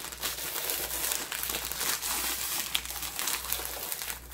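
Crinkling of a plastic bag of roasted seaweed sheets as a spoon is pressed and rubbed hard along its folded crease: a continuous rustle of many small crackles. It is the crisp sheets inside being creased along the fold.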